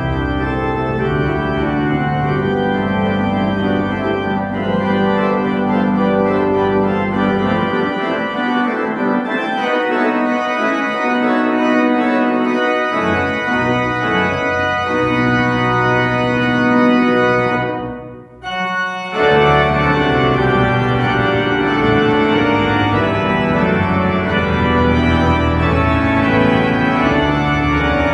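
Church organ playing a postlude in sustained chords over a deep pedal bass. The bass drops out for a few seconds partway through, and about eighteen seconds in the music breaks off briefly before resuming at full strength.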